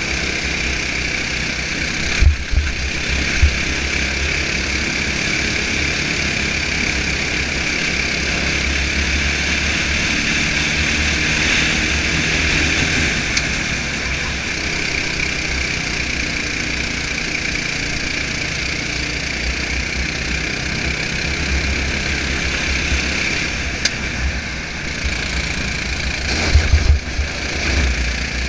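Onboard sound of a racing go-kart driven at speed: its engine running continuously under load with a high whine over a low chassis rumble. A few sharp jolts stand out about two seconds in and again near the end.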